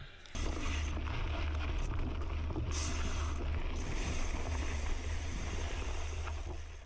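Wind buffeting an action camera's microphone as a mountain bike rolls down a dirt trail: a steady low rumble under a hiss of tyre and trail noise, starting abruptly just after the start.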